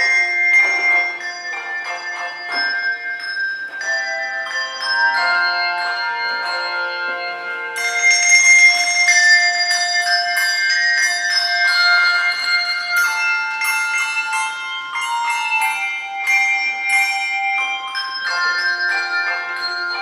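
Handbell choir playing a piece: many tuned handbells struck in chords and runs, the notes ringing on and overlapping. A louder, brighter passage starts about eight seconds in.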